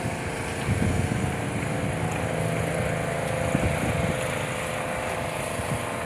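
A vehicle running steadily: a low engine hum with a few steady tones and a rough low rumble.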